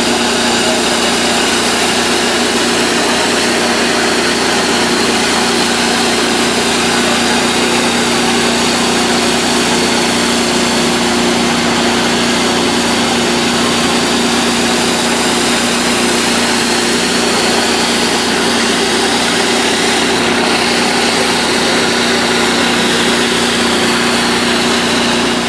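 Pressure washer running with a rotary surface cleaner spraying high-pressure water onto concrete: a steady, loud hiss over an even engine hum.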